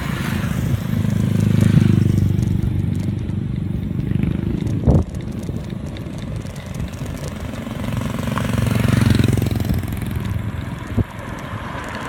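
Motorcycles passing on the road, their engine noise swelling and fading twice, with a short sharp knock about five seconds in.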